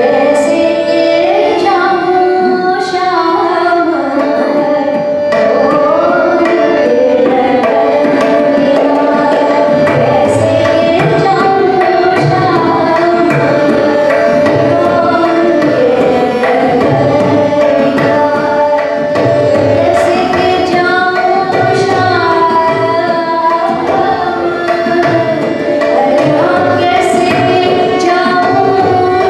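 A woman singing Hindustani classical vocal music in gliding melodic phrases, accompanied by tabla. The low tabla strokes come in steadily about a third of the way through.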